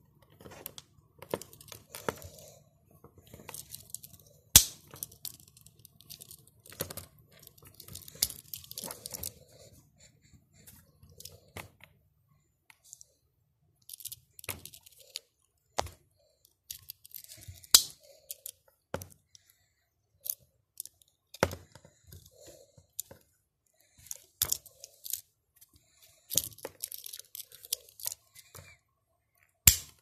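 Handling noise from a red Swiss Army knife: irregular sharp clicks as its blades and tools snap open and shut, with rubbing and rustling of fingers on the knife between them.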